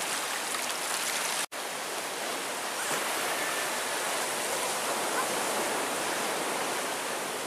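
Steady rush of small surf waves washing up a sand beach. It breaks off for an instant about a second and a half in.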